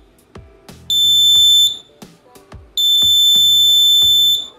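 A buzzer on a laser-and-LDR alarm circuit gives two steady high-pitched beeps, the first under a second long and the second about a second and a half long. The alarm is going off because the laser beam to the light sensor is being blocked.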